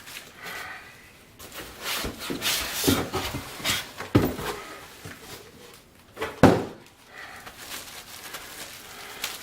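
Styrofoam packing scraping and rubbing as a benchtop belt and disc sander is worked out of its box, with irregular knocks from the machine and packing being handled. The loudest knock comes about six and a half seconds in.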